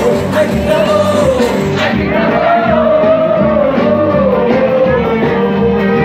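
Live band playing loud through a PA: electric guitar, drums and keyboard, with a sung melody holding long, wavering notes over the top.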